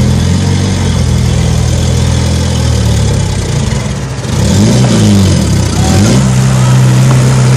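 Heavy diesel engine of machinery pushing under load. About halfway through, its pitch swings down and up as it revs, then it settles into a steady, higher-pitched note.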